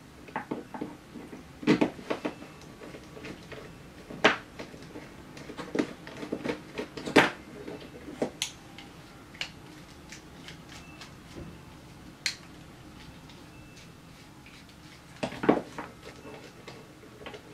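Irregular clicks and knocks of small hand tools, screws and drone frame parts being handled on a desk during assembly with a hex driver. The sounds are scattered, bunched in the first half, with a cluster near the end.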